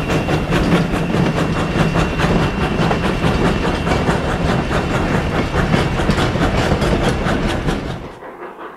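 Freight cars of a steam-hauled freight train rolling past close by, a fast, even clatter of wheels on the rails with a thin, high, steady squeal over it. A little after 8 seconds it drops abruptly to the much quieter sound of the train far off.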